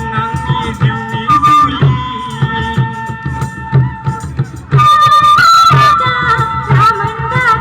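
Folk-style music: a high melody line over a steady, regular beat. The music gets louder and fuller about five seconds in.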